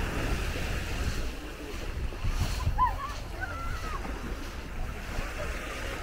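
Small Baltic Sea waves washing onto a sandy shore, with wind rumbling on the microphone. Faint distant voices rise and fall about midway through.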